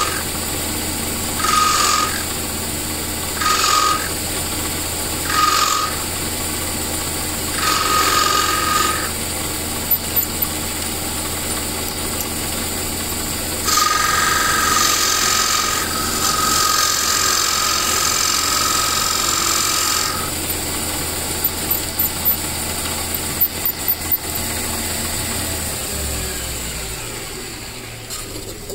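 Small metal lathe running with a steady hum while a turning tool cuts an orange G-10 fibreglass ferrule on a billiard cue shaft: five short cutting passes, then one of about six seconds, each with a high ringing whine over the cutting noise. A few clicks follow, and the motor hum falls away near the end as the lathe winds down.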